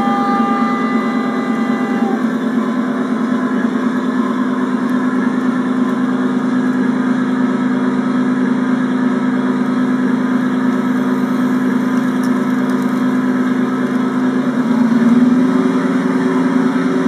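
Simulated locomotive engine sound from a computer played through stereo speakers: a steady, low engine hum that rises in pitch and level about fifteen seconds in, as if the engine is revving up. A higher sustained tone, like a horn, cuts off about two seconds in.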